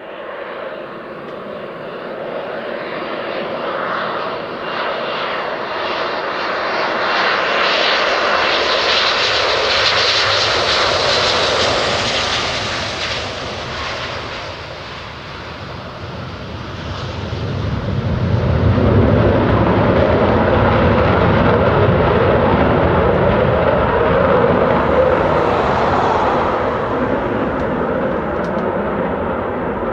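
Panavia Tornado ECR's twin RB199 turbofan engines during a touch-and-go. The jet whine grows louder as it comes in to land, eases briefly about halfway through as it rolls on the runway, then the engines spool up with a deep rumble as it accelerates and climbs away.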